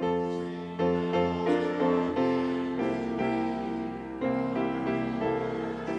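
Piano playing a slow hymn in full chords, the chords changing about every half second.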